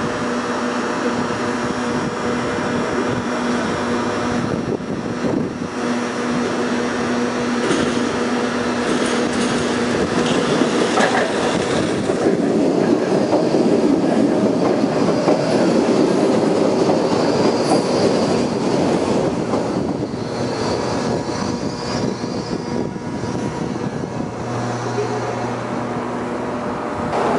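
Baltimore Metro Subway train of Budd-built stainless-steel cars pulling into the station: the rumble of the cars running along the rails builds to a peak around the middle as they pass close by, then eases as the train slows. Faint high wheel squeal is heard in the second half.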